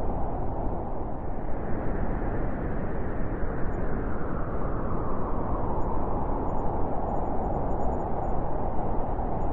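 Blizzard wind blowing hard and steadily: a dense rushing noise that swells and eases over a few seconds as the gusts shift.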